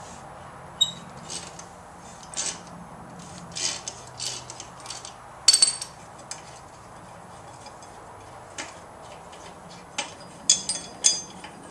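Scattered metallic clinks and clicks from a wrench loosening a lawnmower blade bolt and the bolt, washer and steel blade being handled as they come off. The clinks are irregular, with the loudest about five and a half seconds in and a quick cluster near the end.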